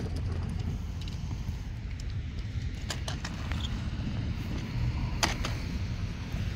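Light plastic clicks and knocks of small toy trucks being handled and set into a cardboard box, a few about three seconds in and a sharper one a little after five seconds, over a steady low outdoor rumble.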